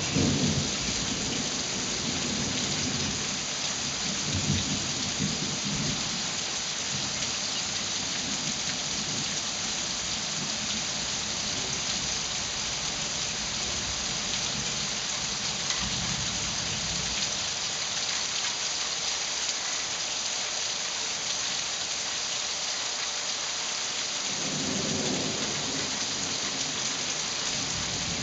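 Heavy rain falling steadily during a thunderstorm, with low rolls of thunder at the start, again around four seconds in, and once more near the end.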